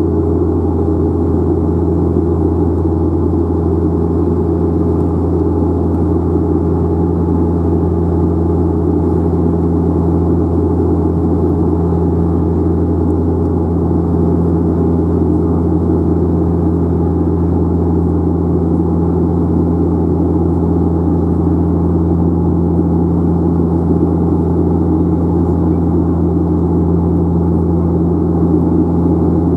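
Cabin drone of a De Havilland Canada Dash 8 Q400's Pratt & Whitney PW150A turboprop and six-blade propeller, heard from a seat beside the propeller: a steady deep hum with a second, higher tone and a rushing noise over it, unchanging in pitch and level.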